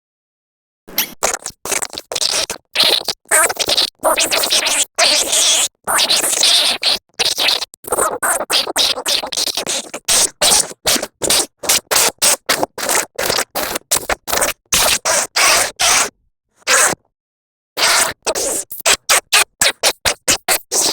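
Harsh, scratchy noise chopped into rapid stuttering bursts with abrupt cuts to silence: an edited sound effect for a made-up monster. The bursts get shorter and faster from about eight seconds in, with a pause of over a second near the end.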